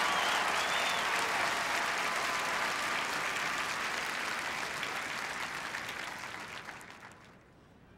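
Large stadium crowd applauding after a marching band number, with a few whistles near the start; the applause dies away about seven seconds in.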